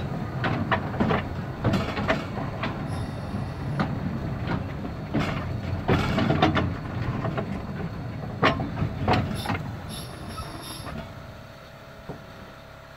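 Kerr Stuart Wren-class narrow-gauge steam locomotive heard from its footplate, running slowly with irregular clanks and knocks from its wheels and motion over the rail joints. It quietens over the last couple of seconds.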